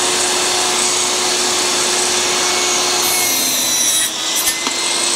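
Table saw running and crosscutting a small block of wood fed through the blade with the miter gauge, over the motor's steady hum. The level dips briefly about four seconds in.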